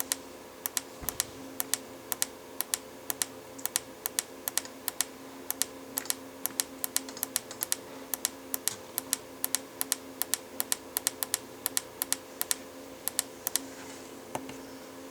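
A pushbutton being pressed over and over, giving sharp clicks at about four a second, sometimes in quick pairs, that stop near the end; a steady hum runs underneath.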